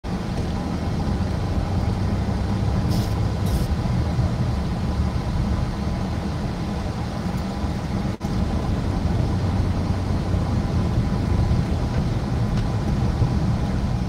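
Steady low rumble of a car's running engine heard inside the cabin. Two short clicks come about three seconds in, and the sound briefly cuts out just after eight seconds.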